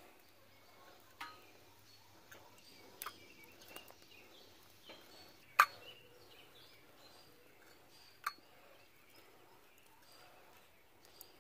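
Steel tongs clinking against a kettle grill's wire cooking grate as chicken wings are turned over one by one: a handful of sharp, scattered clinks, the loudest about halfway through.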